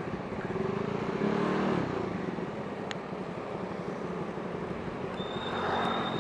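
Honda CB150R single-cylinder engine running through a 3Tech Spartan GP racing exhaust while riding, over steady road and wind noise. The engine note rises briefly about a second in. A thin, steady, high whine starts about five seconds in.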